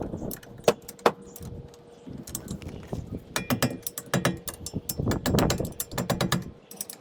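Ratchet wrench clicking as the brake caliper bolts are tightened: two sharp clicks, then from about two seconds in, repeated runs of rapid ratchet clicks.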